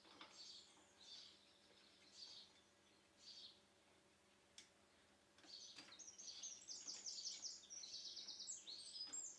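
Faint songbird singing: a few short, high chirps in the first few seconds, then from about halfway a long run of rapid, repeated high notes.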